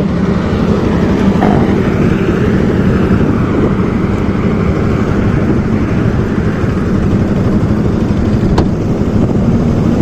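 Bajaj Pulsar NS200's single-cylinder engine idling steadily, without revving.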